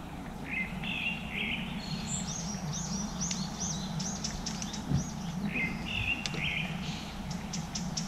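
Birds singing at daybreak: one song phrase heard twice, between runs of quick high chirps, over a steady low background hum. A single soft knock about five seconds in.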